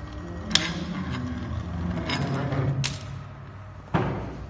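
Desktop mini injection molding machine opening its mold: the servo motor and ball screw drive the platen back, giving a low motor drone that shifts in pitch for about three seconds, with a couple of sharp clicks. A loud sharp knock follows about four seconds in.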